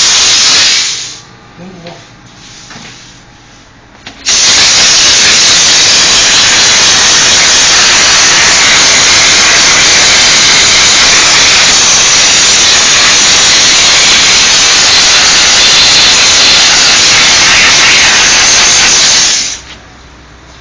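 Diesel steam cleaner's wand spraying steam, a loud steady hiss. It stops about a second in, starts again about four seconds in, and runs on until it cuts off near the end.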